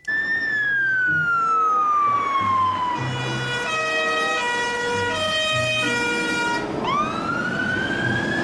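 Fire-engine siren wailing: its pitch slides slowly down for about three seconds, a run of short stepped tones follows, and about seven seconds in it sweeps back up.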